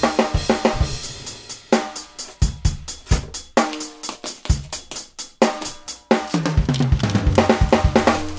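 Background music with a steady drum-kit beat over held tones.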